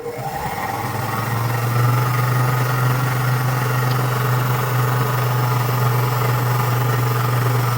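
Food processor motor switched on, speeding up over the first second or so and then running steadily with a strong hum as it mixes bread dough.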